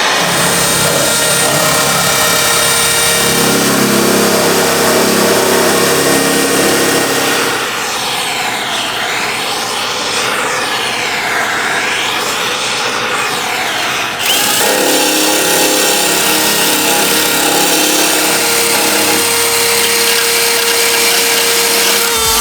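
Power tool working on metal: a loud, steady, noisy whir. It goes muffled and swirling for several seconds in the middle, then comes back full.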